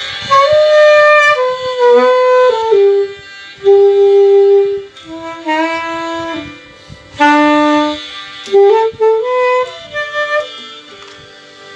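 Saxophone playing a melody in short phrases of clean, sustained notes, with one long held note a few seconds in; the playing thins out near the end.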